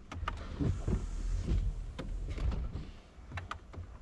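Scattered light clicks and knocks with some soft rustling, from someone handling things inside a car's cabin.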